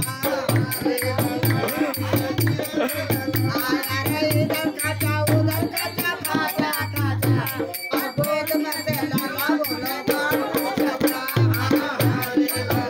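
Badhai folk song: a solo voice singing loudly to the steady beat of a dholak barrel drum, with a jingling rattle keeping time.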